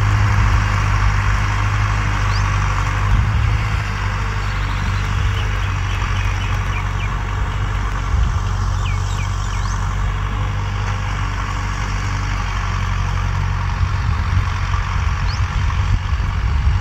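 Farm tractor engine running steadily under load as it pulls a tillage implement through dry soil, a continuous low hum.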